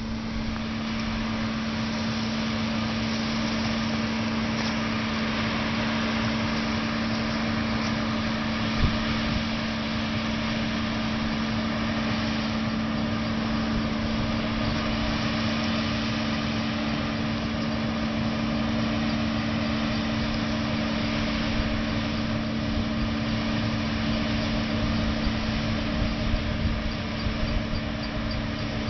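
Self-propelled cotton harvester running steadily as it harvests, a constant engine and machinery drone with a steady hum.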